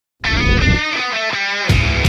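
Background rock music, starting a moment in.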